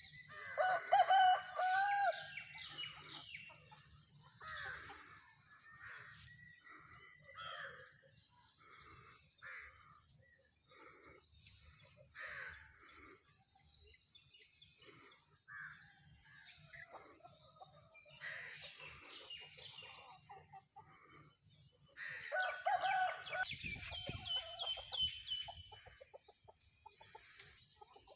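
Country chickens on a poultry farm: a rooster crows loudly near the start and again about 22 seconds in, with hens clucking in short calls throughout.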